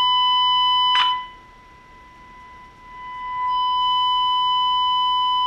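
SoundDesign 6-transistor radio's speaker sounding the steady modulation tone of an RF signal generator, picked up at the 455 kHz IF frequency through a loop probe held near the IF transistors. The tone cuts out with a click about a second in and swells back about three seconds in. Hearing it is a good sign that the IF section is working.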